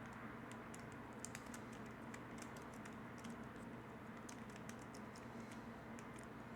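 3x3 speedcube being turned fast during a solve: faint, rapid, irregular plastic clicks as its layers turn, over a low steady hum.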